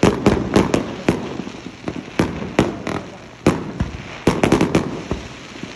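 Fireworks display: aerial shells bursting in a rapid, irregular series of sharp bangs, with a quick cluster of several about four seconds in.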